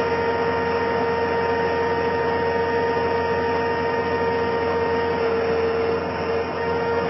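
Skid steer loader running steadily, with a constant whining tone over the engine noise; it eases slightly for a moment about six seconds in.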